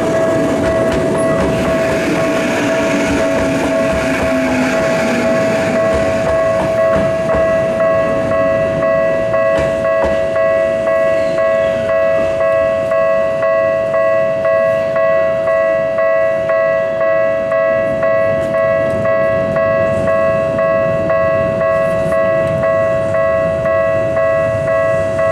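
Japanese railway level-crossing warning bell ringing, a steady multi-tone ring that pulses regularly throughout. A train runs on the track underneath it in the first few seconds, with a slowly falling motor tone.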